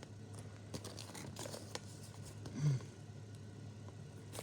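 Plastic Lego minifigure blind bag crinkling and small parts clicking as they are handled, in scattered light rustles. About two and a half seconds in, a short low hum-like voice sound stands out above the rustling.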